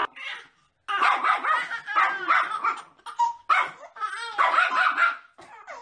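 A small dog barking in a rapid, continuous run of high-pitched barks from about a second in until shortly before the end.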